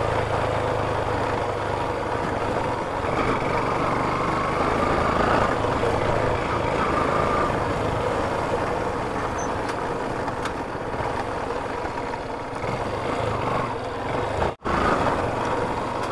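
Yamaha FZ motorcycle engine running steadily while being ridden, mixed with road and wind noise. The sound cuts out for an instant near the end.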